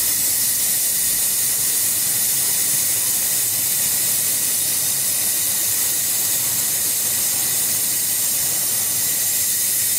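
Steady hiss of gas blowing from the nozzle of a handheld laser welding gun held to a steel tube, unchanging throughout.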